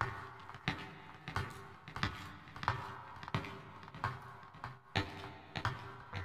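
Clock ticking sound effect: sharp, evenly spaced ticks, about three every two seconds, each with a short ring after it.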